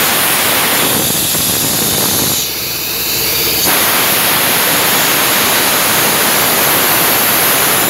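Compressed air hissing hard out of a hose fitting on an air-compressor receiver tank. The hiss changes in tone for a couple of seconds near the start, then holds steady and cuts off suddenly at the end.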